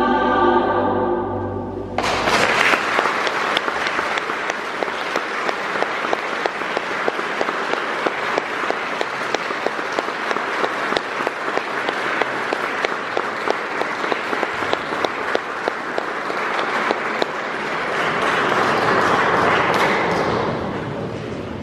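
A choir with a string orchestra holds a final chord, which stops about two seconds in. Audience applause follows at once, swells shortly before the end and then dies away.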